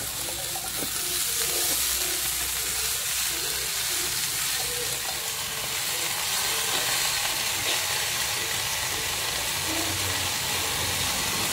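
Hot oil in a wok sizzling with a steady hiss as handfuls of fresh kangkung (water spinach) are dropped in on top of fried belacan paste, giving off steam.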